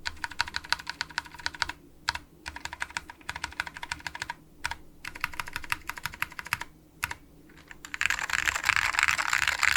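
Fast typing on an Alps SKCM Cream switch keyboard with PBT keycaps: rapid keystroke clicks with a few short pauses. About eight seconds in, it turns into a dense, louder, continuous clatter of keys.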